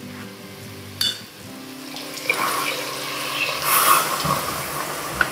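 Water poured into a steel pressure cooker onto toor dal and tomato masala, a steady splashing fill that starts about two seconds in after a light knock.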